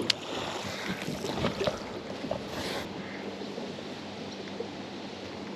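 Quiet outdoor noise of wind and water, with a sharp click at the start, a few faint ticks and a brief hiss a little after two seconds in.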